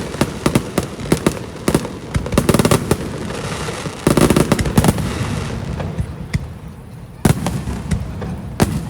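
Aerial fireworks going off in quick succession: repeated bangs and crackling, with a big burst about four seconds in, a brief lull, then another sharp bang near the end.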